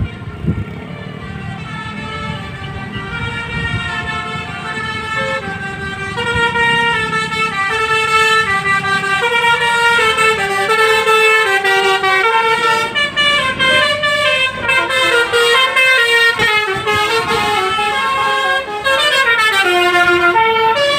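Basuri musical bus horn (Indonesian 'telolet' horn) playing a melody of stepping notes, each held about half a second, growing louder about six seconds in.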